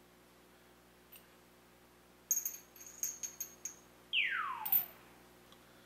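Small metal spinning tops being handled and spun on glass and sapphire kicker lenses: a run of light, ringing metal-on-glass clinks, then a tone that slides steeply down in pitch for about half a second as a top spins on a lens, ending in a click.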